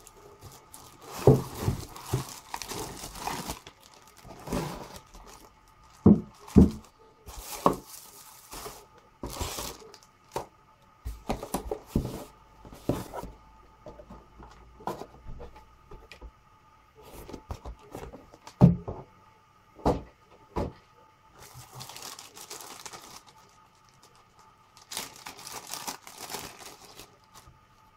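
Plastic wrapping and bags crinkling and rustling as parts of a cordless rotary hammer are unpacked from their cardboard box. Several sharp knocks and thuds come as the box and parts are handled and set down, the loudest about a second in, around six to seven seconds in, and near the middle.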